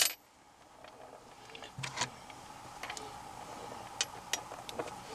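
Scattered light clicks and taps of small metal hand tools, magnetic nut setters, being handled and set down, with a sharper click at the very start.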